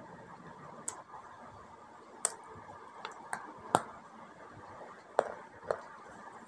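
Person crunching bites of dried nakkumat clay dipped in multani mitti paste: about seven separate, sharp crunches, the loudest near the middle.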